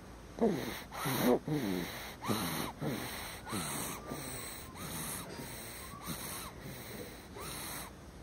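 Snoring in quick, short breaths, about one a second, each with a whistling tone that bends up and down in pitch; the first few are louder and the rest fainter.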